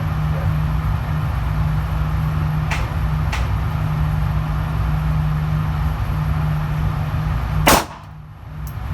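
A single loud pistol shot near the end, over a steady low hum, with two faint sharp clicks earlier on. Right after the shot everything goes briefly quieter, then recovers.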